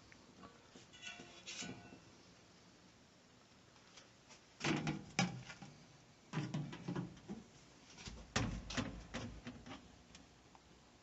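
Bouts of knocking and rattling, like hardware or a panel being handled: one about five seconds in, another about seven seconds in, and a longer one with a low thud near nine seconds.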